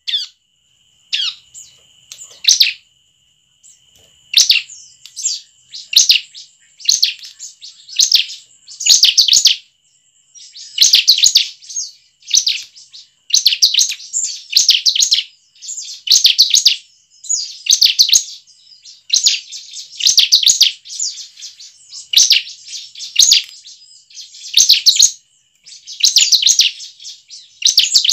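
Bar-winged prinia (ciblek) singing: short bursts of rapid, sharp, high chirping notes repeated about once a second. The bursts are sparse for the first few seconds, then follow almost without pause.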